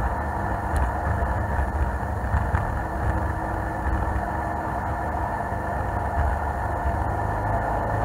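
21-foot HCM jet boat under way on a river: a steady engine rumble with the rush of water along the hull.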